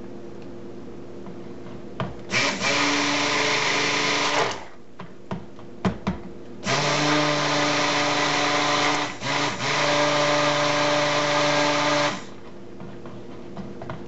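Stick blender motor running in two bursts, about two seconds and then about five seconds, as it blends colorant into cold process soap batter in a plastic pitcher. A few sharp knocks fall in the gap between the bursts.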